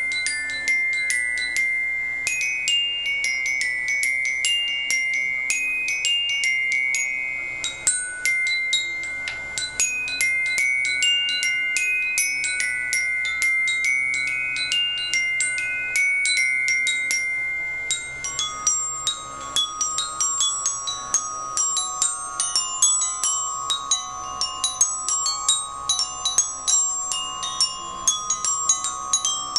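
Glockenspiel being played, each struck metal bar ringing on after the hit. A slow melody of single notes gives way, about two-thirds of the way through, to quicker, busier strikes higher up over a lower note left ringing.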